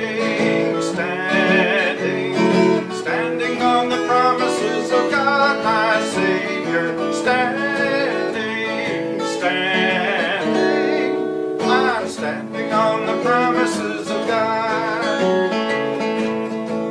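Music: an instrumental break in a hymn, led by strummed acoustic guitar.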